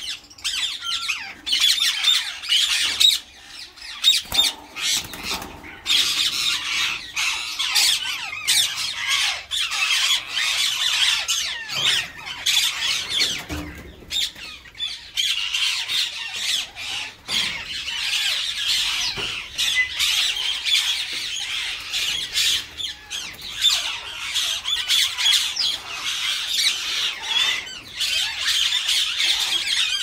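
A flock of Indian ringneck parakeets squawking and screeching continuously, many shrill calls overlapping.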